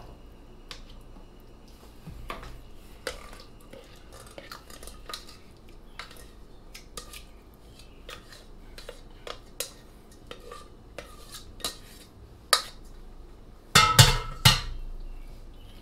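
A metal spoon scraping and clicking against a stainless steel pot and a metal springform pan as sauce is spooned out and spread. Near the end comes a louder clatter of metal, as the pot is set down in the sink.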